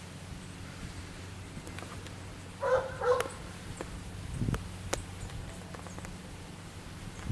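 Two short animal calls about half a second apart, a few seconds in. A few light knocks follow, over a steady low hum.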